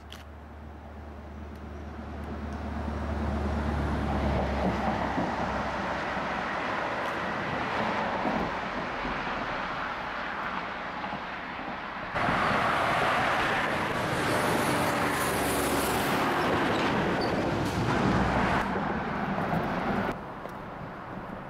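Highway traffic passing over a steel bridge: a steady rush of tyres and engines that swells over the first few seconds. About halfway through it turns abruptly louder and brighter, then drops back suddenly shortly before the end.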